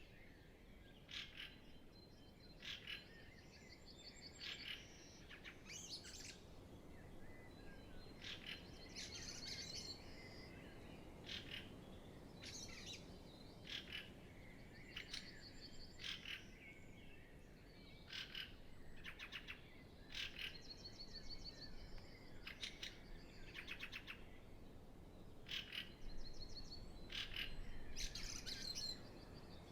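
Spring dawn chorus: many songbirds singing, with short song phrases and trills from different birds following one another every second or so.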